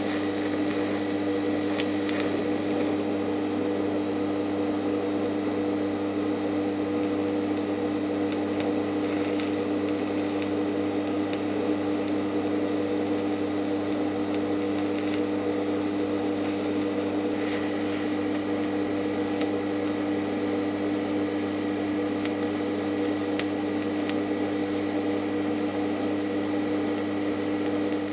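DC TIG welding arc from an R-Tech TIG 261 inverter welder, brazing silicon bronze onto a cast iron gearbox: a steady electric hum with faint scattered crackles, held at an even pitch throughout.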